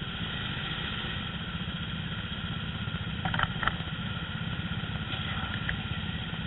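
Go-kart engines running steadily, a low pulsing drone. Two or three brief, sharper high sounds cut through about three and a half seconds in.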